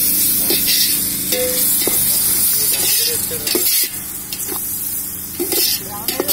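Chopped onions, tomatoes and greens sizzling in hot oil in a large metal pot, stirred with a perforated metal skimmer that clinks and scrapes against the pot about once a second. The sizzle is loudest for the first few seconds, then eases.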